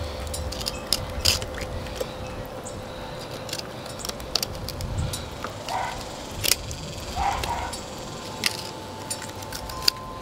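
Fillet knife cutting along a flathead catfish's ribs and backbone, making irregular sharp clicks and ticks. A faint steady hum runs underneath.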